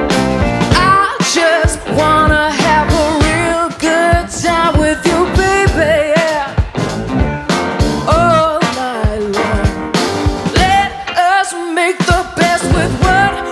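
Live rock band playing: drums, electric guitar and electric keyboards, with a woman singing the melody.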